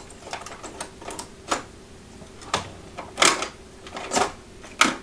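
Hard plastic clicking and knocking, about a dozen sharp irregular clicks, as a small plastic piece is worked loose from a ratcheting screwdriver's packaging.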